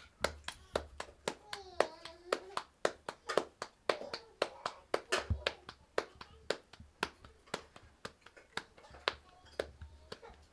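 Flatbread dough being slapped between bare palms, turned and flattened by hand: a quick, even run of soft slaps, about three to four a second.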